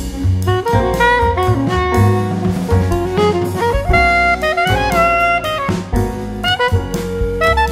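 Background instrumental music: a melody line over a drum beat.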